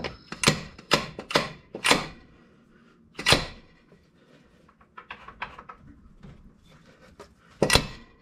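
Polaris RZR Pro XP primary clutch knocking on its shaft as it is pulled and rocked by hand to work it loose, not yet coming off: five sharp knocks in the first two seconds, another a little over a second later, some fainter clatter, then two more near the end.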